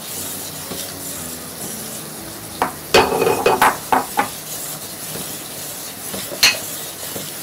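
Raw mango pulp and sugar syrup boiling in a metal pot with a steady bubbling sizzle while a metal spoon stirs it. The spoon knocks against the pot several times about three seconds in and once more near the end.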